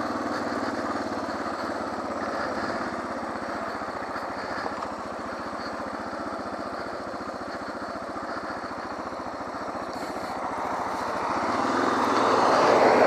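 Suzuki DR650SE's single-cylinder four-stroke engine running steadily as the motorcycle is ridden along a trail, growing louder near the end.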